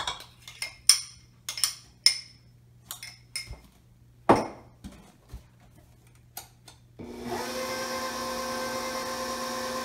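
A utensil clinks and scrapes against a mixing bowl, about two clicks a second, followed by a single thump. About seven seconds in, a KitchenAid stand mixer's motor switches on and runs steadily at low speed, mixing bread dough.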